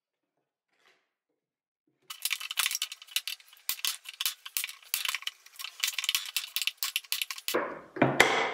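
Wood chisel scraping along the edge of an old wooden frame: a fast, irregular run of sharp scrapes and ticks starting about two seconds in, then a louder, fuller rasp near the end.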